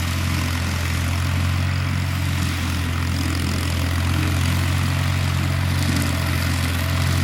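A vehicle engine running steadily, a low drone under a loud, even rushing noise.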